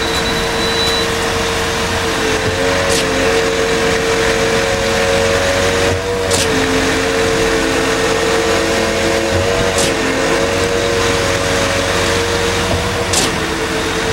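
Truck-mounted concrete pump running steadily, pumping concrete through its delivery hose with a loud, even engine and hydraulic drone. A short hiss comes about every three and a half seconds, four times, with a slight wobble in the drone at each stroke of the pump.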